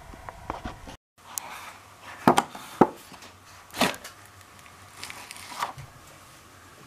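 Paper handled against wooden boards: two sharp knocks, then a sheet of newspaper rustling, with a few lighter taps and rustles after it. The sound drops out briefly about a second in.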